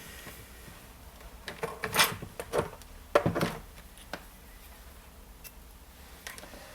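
Small metal tools clicking and clattering on a workbench: a few quick knocks about two to three and a half seconds in, then a couple of light clicks.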